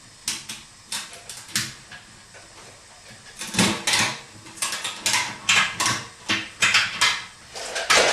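Ratchet tie-down strap being cranked tight: sharp ratchet clicks with each stroke of the handle. There are a few clicks at first, a short pause about two seconds in, then a quicker run of clicks. The strap, threaded through the wheel's handhole, is pulling the 22.5-inch tire's bead over onto the rim.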